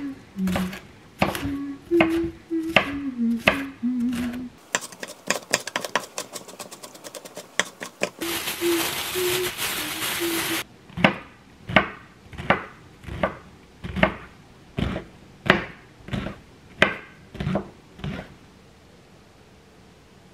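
Kitchen knife chopping onion on a wooden cutting board while a woman hums a tune along with the strokes. Then comes a quick run of fast chopping, a plastic bag crinkling under a few more hummed notes, and about a dozen slower, evenly spaced knife strikes on the board as mushrooms are chopped, stopping a couple of seconds before the end.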